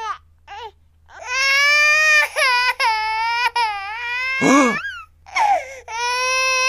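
A high-pitched cartoon character voice crying: two short squeaks, then long wavering wails broken by a sharp sobbing gasp about four and a half seconds in.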